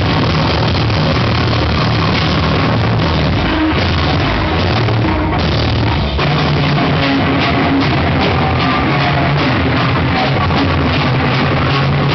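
Live band playing loud, distorted rock with pounding drums. The sound drops out briefly about six seconds in, then comes back with a run of steady, evenly spaced drum hits.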